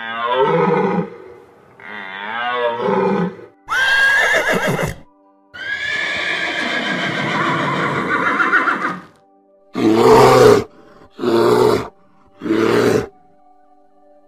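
A series of animal calls. First a deer calls twice with wavering cries, then a horse gives a sharp call and one long whinny lasting several seconds. Near the end come three short harsh grunts over faint background music.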